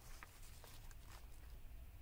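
Near silence with a few faint, light ticks of paper journal pages being handled.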